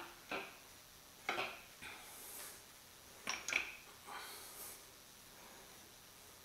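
Light metallic clinks and knocks of a steel clutch pressure plate and disc being handled and fitted against a Subaru engine, a handful of scattered taps a second or so apart.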